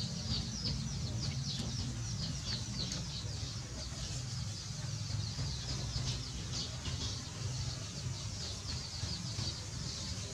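Birds chirping, many short, quick downward chirps one after another, over a steady low rumble.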